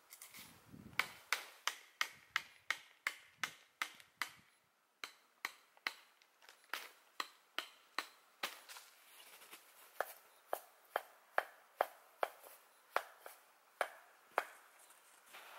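A hand tool striking a wooden tent stake in a steady run of sharp knocks, about three a second, with a short break about four and a half seconds in and stopping near the end. The stake is a hand-cut piece of wood being worked in to anchor the tent in snow.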